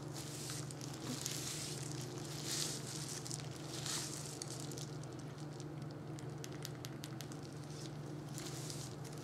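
A gloved hand rubbing hair dye into long hair, making soft squishing and crackling rustles that swell now and then, with a run of fine crackles about six to eight seconds in. A steady low hum runs underneath.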